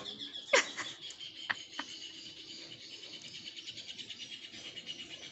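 A steady, high, rapidly pulsing insect trill that sinks slightly in pitch, with one sharp click about half a second in and two fainter ticks a second later.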